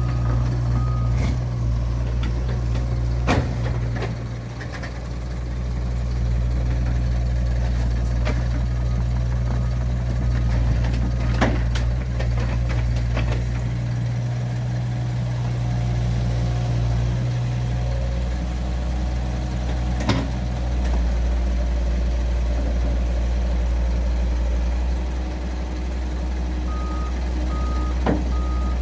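Bobcat E85 compact excavator's diesel engine running steadily while the machine tracks off a flatbed truck, with several sharp clanks of the steel tracks and undercarriage along the way. A backup alarm beeps in short repeated pulses near the start and again near the end.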